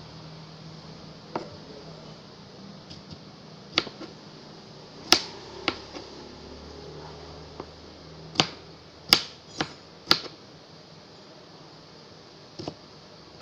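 Kitchen knife dicing cucumber on a cutting board: about ten sharp, irregularly spaced knocks of the blade striking the board.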